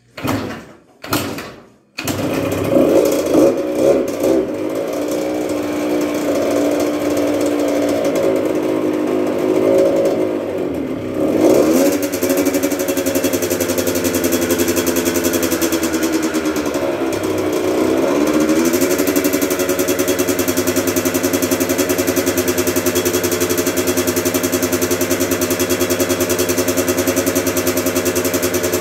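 Yamaha YZ80 80cc two-stroke engine being kick-started after a full rebuild: two short kicks, then it fires on the third kick about two seconds in and keeps running. On choke it wavers, dipping in pitch twice as if bogging, then settles into a steady run near the end.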